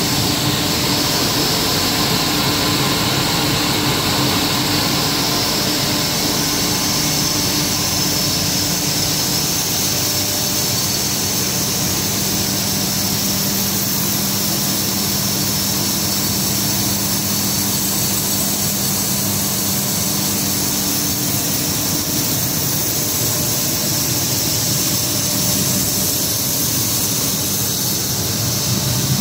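Single-screw plastic recycling pelletizing line running at full production: a steady, dense machine hum and hiss with a constant high whine and low held tones, from the drive motors, the water-ring pellet cutter and the pellet dewatering and screening equipment.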